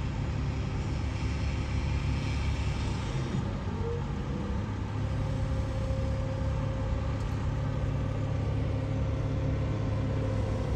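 Heavy diesel engine of a large wheeled log loader running under load as its grapple lifts a whole truckload of logs, with a steady whine that comes in about four seconds in and holds.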